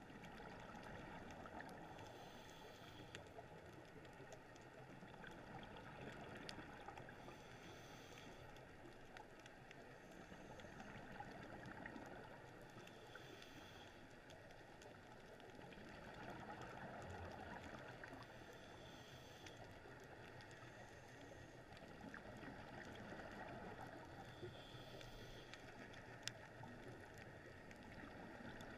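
Faint scuba regulator breathing heard underwater, slow even swells of noise about every five to six seconds.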